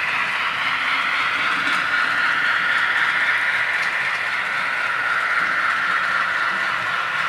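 Steam exhaust sound from the digital sound decoder in a Hornby model of a Lord Nelson class locomotive, playing a recording of the preserved Lord Nelson's eight-beat-per-revolution exhaust as the model runs. It comes through a small 28 mm speaker and sounds thin and steady, with little bass.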